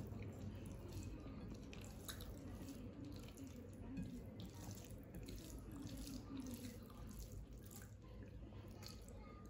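Fingers mixing rice and fish on a plate: faint wet squishing with many small clicks.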